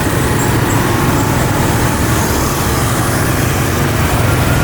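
Road traffic with a motor vehicle's engine running steadily close by.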